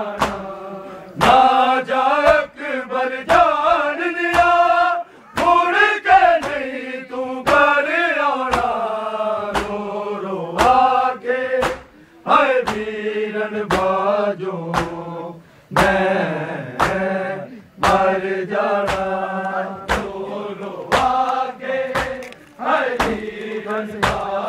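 Male voices chanting a Punjabi noha (Shia mourning lament), with the crowd's matam: open hands striking bare chests together in sharp slaps, a little more than one a second, keeping the beat of the chant.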